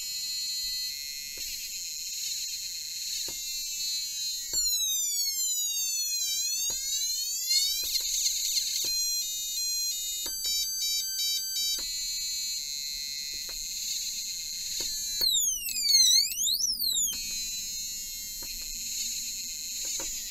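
Buzzer on a small electronic sound-effects kit playing a run of high-pitched alarm sounds as its buttons are pressed. It goes through warbling tones, siren sweeps rising and falling, and rapid stepped beeping patterns, with short clicks as the sounds change. The freshly soldered kit is working.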